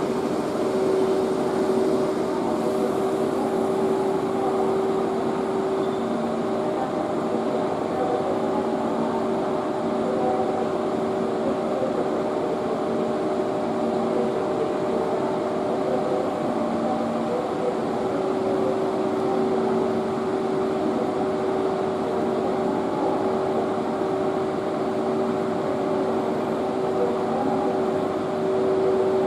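JR Freight EF81 electric locomotive standing with its cooling blowers and auxiliary machinery running: a steady mechanical hum with a few held tones and a fainter tone that comes and goes.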